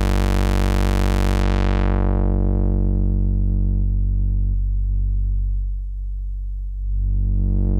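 Behringer Odyssey synthesizer holding one low square-wave note, no oscillator sync, through its two-pole filter. The filter cutoff is swept down over several seconds until the upper overtones fade and the note turns dull, then swept back open near the end, showing what the filter does to the raw waveform.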